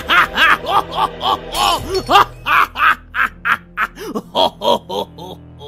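Cartoon clown laughing: a long run of quick, pitch-arching 'ha' syllables that thins out and fades near the end, over a faint low drone.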